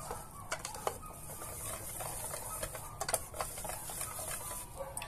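Wire whisk beating a runny batter in a stainless-steel bowl, its wires clicking irregularly against the metal.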